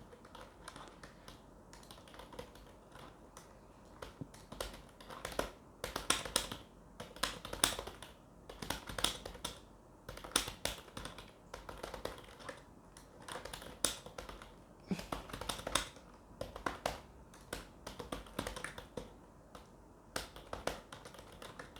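Fast typing on a computer keyboard during a timed typing test: rapid, irregular key clicks in quick runs with short pauses between words, at about 62 words a minute.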